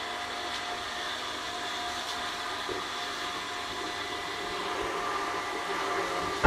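Small electric water pump running steadily, a motor hum with a few thin steady tones over a hiss. It is being run briefly to start water siphoning through its delivery pipe into the reservoir.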